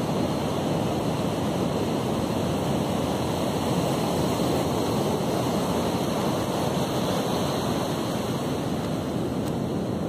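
Steady surf: waves breaking offshore and washing up over a flat sandy beach, an even rushing noise that does not let up.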